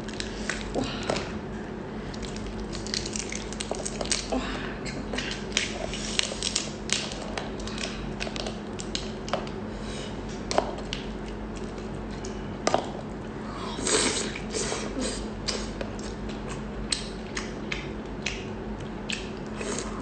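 Irregular sharp clicks and crackles of a tiger prawn's shell being cracked, peeled and chewed close to the microphone, with a denser burst of crackling partway through, over a steady low hum.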